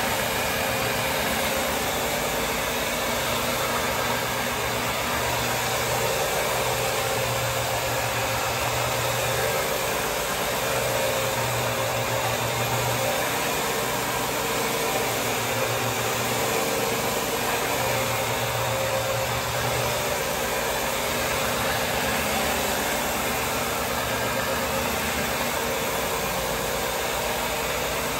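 Electric counter-rotating brush (CRB) floor machine running steadily, its brushes scrubbing a wet linoleum floor to strip old wax, with a low hum that comes and goes.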